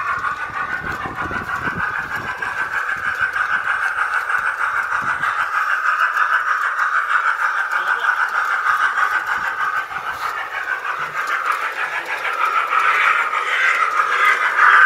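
Model train locomotive sound effects played through a faulty onboard speaker. They come out tinny and thin, with almost no bass, and grow louder and brighter near the end.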